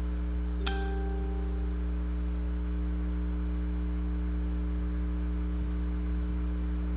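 Steady electrical hum, with a short ringing ping less than a second in.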